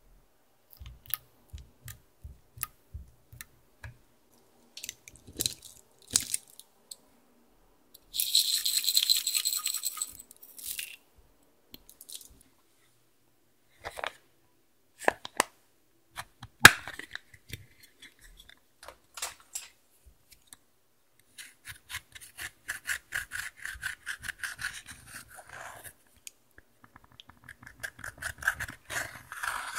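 Makeup being crushed for slime: light taps of a tool on the slime, a couple of seconds of dense scratchy rustling, then sharp clicks as a plastic makeup compact is opened, the loudest a little past halfway. Near the end, a pointed tool scrapes and crunches pressed eyeshadow in its pan in a quick, rhythmic scratching.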